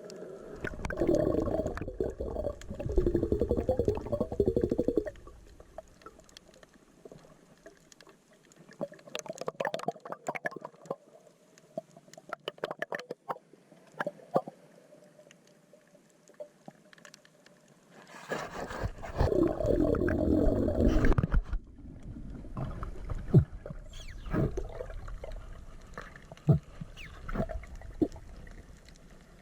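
Water sounds picked up by a spearfishing camera: two bubbly, gurgling bursts of a few seconds each, about half a second in and again near two-thirds of the way, with scattered sharp clicks and taps in between.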